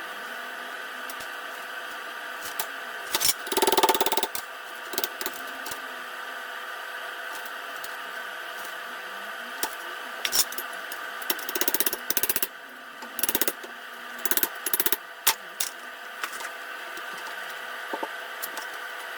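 Short bursts of rasping from a tool working on metal, a few seconds in and several more in the second half, over a steady background hum.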